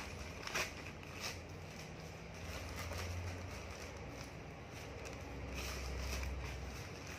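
Plastic courier pouch being torn open and handled: two sharp crackles early, then softer plastic rustling, over a low steady hum.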